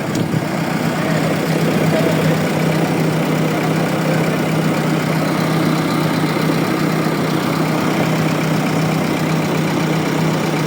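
Backhoe loader's diesel engine running steadily with an even, unchanging hum.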